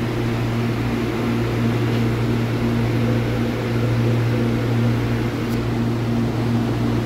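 Electric commuter train standing at the platform with its doors open, its onboard equipment giving a steady low hum with a faint pulsing tone above it.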